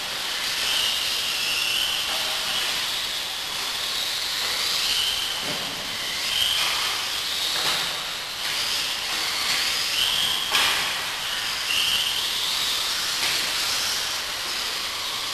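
Vintage electric radio-controlled off-road buggies running laps: a steady hiss of motors, gears and tyres, with short high whines that come and go as the cars accelerate. A few sharp knocks, the loudest about ten seconds in.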